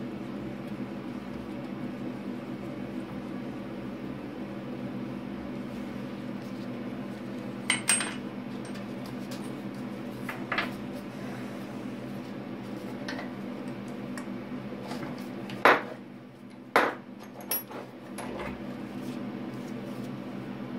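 Metal tools and a machined steel part clinking and knocking against a steel drill-press vise and the bench: a few scattered sharp clinks, the loudest a little past the middle, over a steady low hum.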